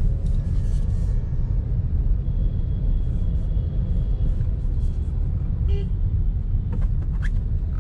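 Steady low rumble of a car's tyres and engine, heard from inside the moving car's cabin.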